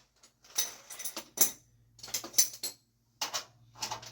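Metal tools and furnace parts being handled, in a series of short clanks and rattles.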